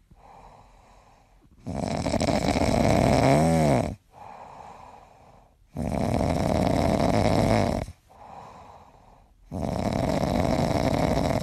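A sleeping yellow Labrador snoring: three long snores of about two seconds each, with quieter breaths between them. The first snore ends in a short whistling tone that rises and falls.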